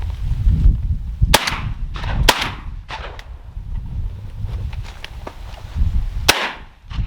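Shotgun shots during a dove hunt: two loud reports about a second apart early on, a few fainter, more distant shots after them, and another loud shot near the end. A low wind rumble on the microphone runs underneath.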